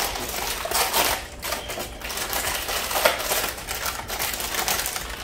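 Crackling and crinkling of a plastic packet of roasted seaweed snacks being handled and opened.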